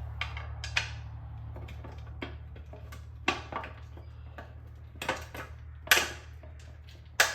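Small metal bolts clinking and tapping against a lawn mower's muffler plate as they are fed through its holes: irregular sharp clinks, the loudest about six seconds in and just before the end, over a steady low hum.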